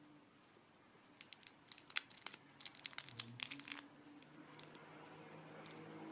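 Crinkly wrapper of a twist-wrapped candy crackling as a cat licks and bites at it, a dense run of crackles from about one to four seconds in, then a few scattered ones.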